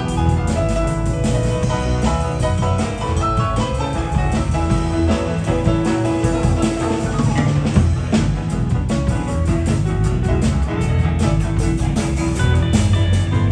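Live blues-rock band playing an instrumental stretch without singing: keyboard piano, electric guitars, bass and a drum kit keeping a steady beat.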